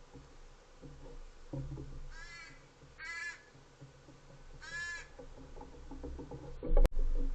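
American crow cawing three times, short harsh caws about a second apart. Near the end, a sharp knock, followed by low rumbling noise.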